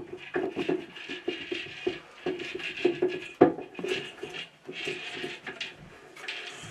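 A plastic water-filter control valve being screwed by hand onto the threaded neck of its mineral tank: a run of irregular light scrapes and clicks, with one sharper knock about three and a half seconds in.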